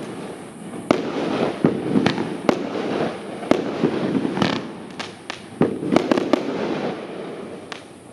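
Argento 'Blütenstaub' 25-shot 30 mm fireworks battery firing: about a dozen sharp bangs of bursting shells at irregular spacing, coming faster a little past the middle, over a continuous hiss.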